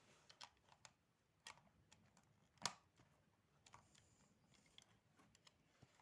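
Faint, scattered clicks and light taps at irregular intervals, with one louder knock about halfway through.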